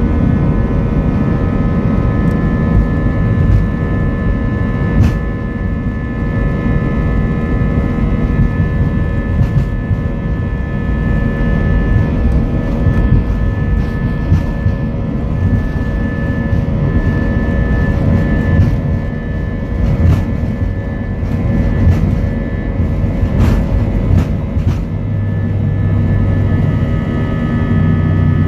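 Airliner jet engines at takeoff power, heard from inside the cabin during the takeoff roll: a loud, steady rushing noise with a deep rumble and several steady whining tones. A deeper hum joins near the end.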